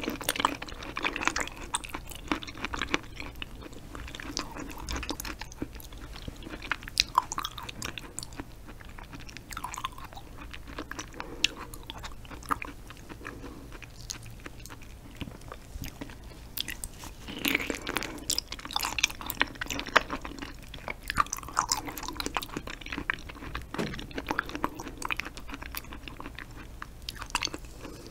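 Close-miked chewing of raw stingray liver: many short mouth clicks and smacks, busier about two-thirds of the way through.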